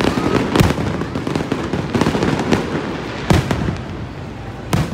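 Aerial firework shells bursting overhead: several sharp booms, one about half a second in, one a little after three seconds and one just before the end, over a continuous rumble and lighter pops.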